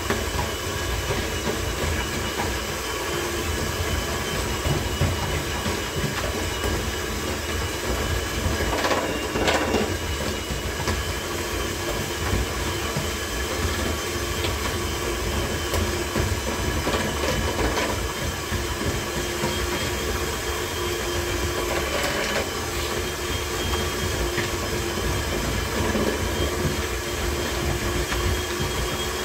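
Handheld electric mixer with dough hooks running steadily with a constant whine as it kneads minced meat in a plastic bowl, with a few louder knocks along the way.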